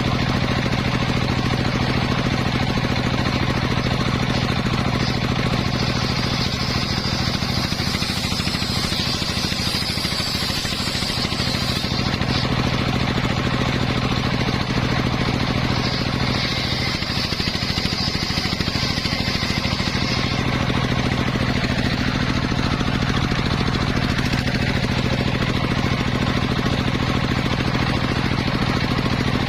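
Homemade engine-driven circular saw rig running steadily while sawing teak, with a constant low engine drone. A higher whine from the blade comes up twice, for several seconds each time.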